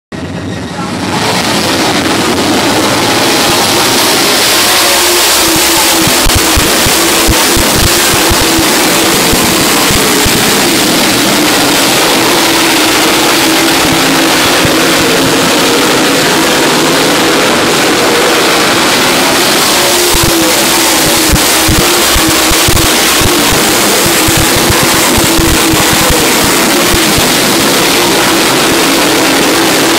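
A pack of dirt late model race cars running their V8 engines together around a dirt oval, a loud, steady massed engine sound.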